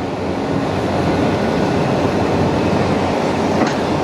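Railway wagons rolling along the track: a steady rumble, with one short click near the end.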